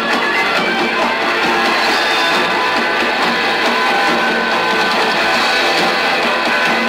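Punk rock band playing live, guitar-driven and steady without a break.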